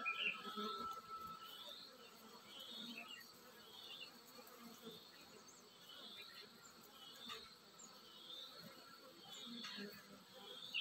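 Honeybees buzzing faintly as they fly in and out of the entrance of a log hive, with short high chirps repeating about once a second.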